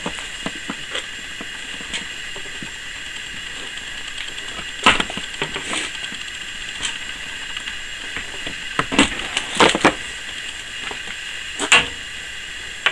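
Cable being pulled through a pipe-cutter wire stripper, its cutting wheel slitting the insulation: intermittent creaks and scrapes, sharpest about five seconds in, around nine to ten seconds, and near the end, over a steady hiss.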